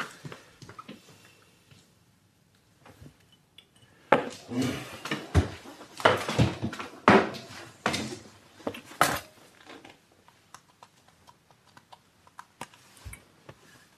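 Things being handled and moved about inside a wooden bookcase cabinet: a run of knocks, clinks and rattles from about four seconds in to about ten seconds, then a few faint clicks near the end.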